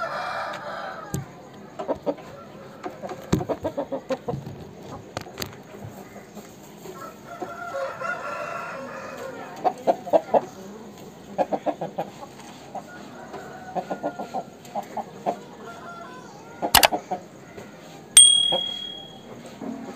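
Chickens clucking in quick runs of short notes. Near the end there is a sharp knock, then a sudden loud onset with a brief high steady tone.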